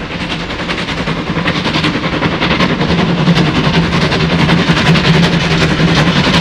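Steam locomotive working hard, its exhaust beats coming in a rapid, even rhythm and growing louder.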